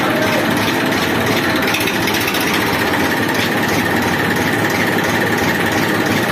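Farm tractor's diesel engine running steadily at low revs while the tractor slowly backs its trolley.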